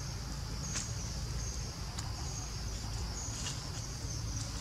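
Outdoor ambience: insects calling in repeated short, high-pitched buzzes over a steady low rumble, with a few faint clicks.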